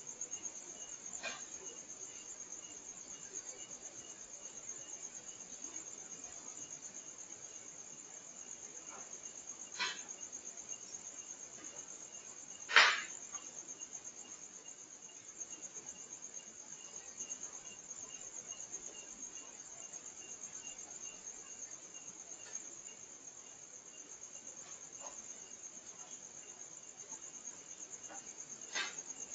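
Crickets chirring steadily at a high pitch through the night, broken by a few sharp knocks like something being struck, the loudest about thirteen seconds in.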